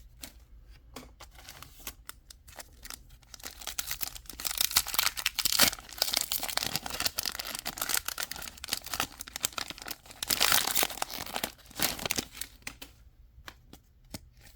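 Foil wrapper of a Pokémon 151 booster pack crinkling and being torn open, with scattered crackles and two louder spells of tearing and crinkling, about four seconds in and about ten seconds in.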